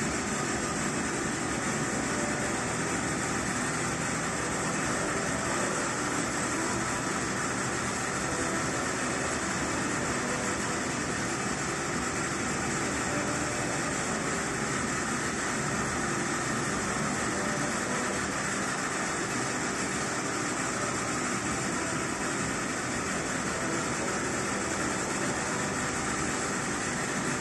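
Steady, unbroken hum and hiss of running machinery, with no knocks or thuds in it.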